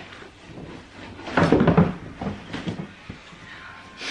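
Handling noise from a stack of record sleeves being shifted and pushed back into place, with a brief scraping rush about a second and a half in and a few light knocks after.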